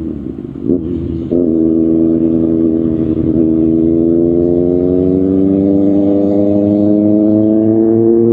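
Kawasaki ZX6R's inline-four engine through an Arrow Pro Race exhaust: the note sags off the throttle with a short blip, picks up sharply about a second in, then climbs slowly and steadily in pitch under acceleration.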